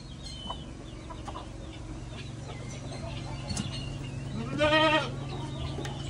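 A goat bleats once, a short quavering call about four and a half seconds in, over faint high chirping and a steady low hum.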